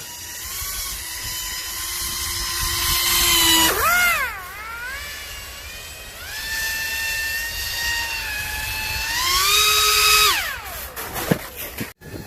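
Pro Boat Aerotrooper RC airboat's brushless electric motor and propeller whining as the throttle is worked. The pitch climbs, dips and recovers about four seconds in, holds steady, revs up again near ten seconds, then winds down near the end.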